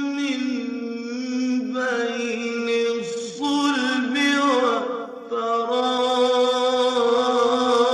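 A man reciting the Quran in a melodic, drawn-out style, holding long notes with ornamental turns and pausing briefly for breath a few times.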